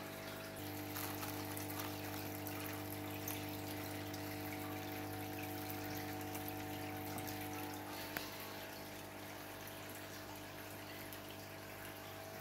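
Hang-on-back aquarium filter running: water trickles and splashes from its outflow lip into the tank over a steady pump hum.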